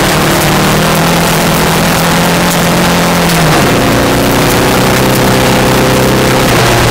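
VW Beetle rally car's engine pulling hard at speed on gravel, heard from inside the car: the engine note holds and rises slightly, drops sharply in pitch about halfway through as it shifts up, then climbs again. A constant rush of tyres and gravel runs underneath.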